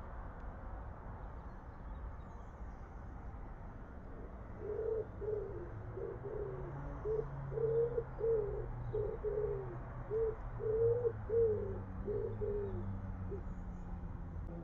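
Pigeon cooing: a run of short coos, each rising and falling, repeated about twice a second. It starts about five seconds in and stops near the end.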